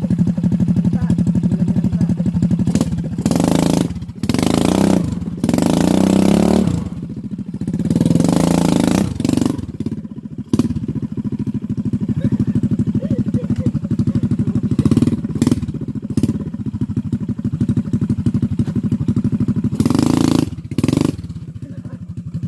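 Motorcycle engine running with a steady, even beat, revved up in several short bursts, five times in all, the last near the end.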